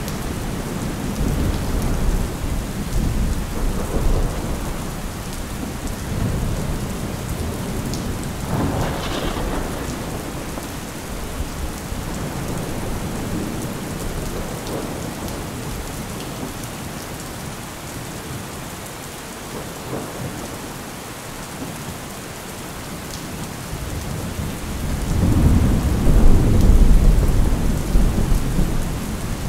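Thunderstorm: steady rain with rolling thunder. There is a sharper crack of thunder about nine seconds in, and a long, loud rumble builds near the end.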